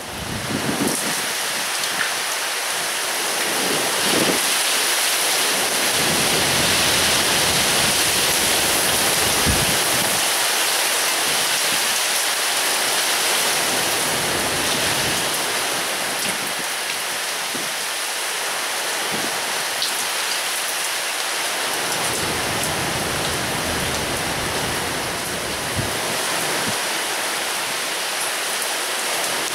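Heavy rain pouring down in a thunderstorm cloudburst, a loud steady hiss that swells up in the first second. Low rumbles come and go underneath it.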